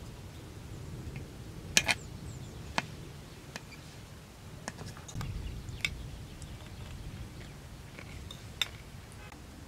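Scattered light clinks of utensils against dishes, the loudest a quick pair about two seconds in, then single clinks every second or so, over a low steady rumble.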